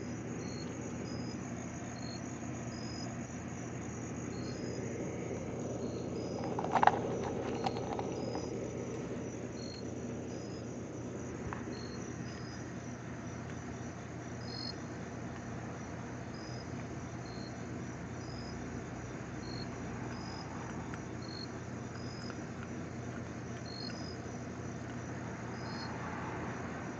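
Night insects chirping: short high chirps repeating roughly once a second over a steady high trill. A sharp click about seven seconds in, the loudest moment, is followed by a few fainter clicks.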